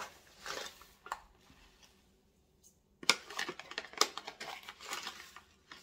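Paper crinkling and rustling as it is handled, with a sharp crackle about three seconds in followed by a quick run of small crackles and clicks.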